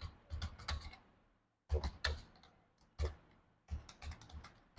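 Typing on a computer keyboard: irregular runs of key clicks in short groups, with brief pauses between words.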